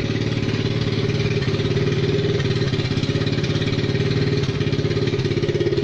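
A 125 cc ATV's small single-cylinder engine idling steadily with a fast, even putter.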